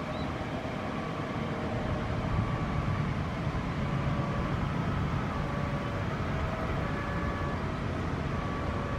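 CC 206 (GE C20EMP) diesel-electric locomotive hauling a passenger train as it approaches: a steady low engine and rail rumble that grows louder over the first few seconds and then holds.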